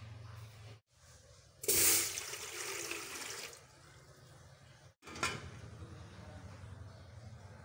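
Water poured into a large steel pot, splashing loudly for about two seconds, to set up a steamer. About five seconds in there is a single short knock as the lid goes on.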